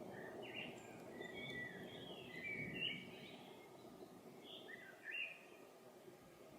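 A songbird singing a run of short chirps and warbles, over a low rumble of distant thunder that fades away toward the end.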